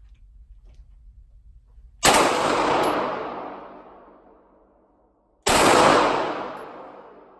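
Two gunshots about three and a half seconds apart, each ringing on in a long echoing decay off the walls of an indoor shooting range.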